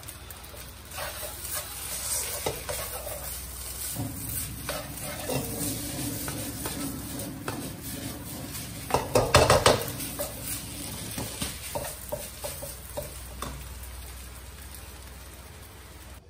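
Stir-frying in a pan: a spatula scraping and knocking against the pan over a low sizzle of frying food, with a louder run of scraping strokes about nine seconds in.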